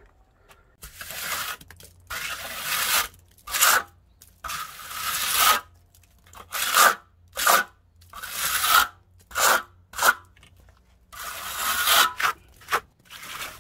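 Steel hand trowel scraping and spreading a second coat of stucco across a wall, in about a dozen sweeping strokes of varying length with short pauses between them.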